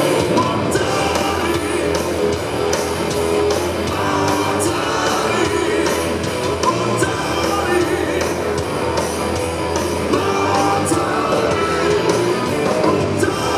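Live hard rock band playing loudly: electric guitar, bass guitar, drums and keyboards.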